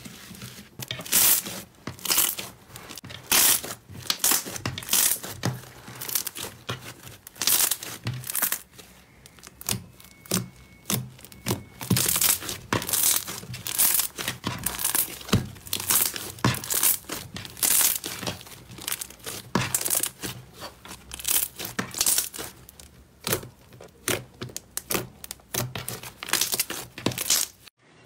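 Pink slime being poked, squeezed and pulled apart by hand, giving many short, sharp crackling and tearing sounds in an irregular rhythm.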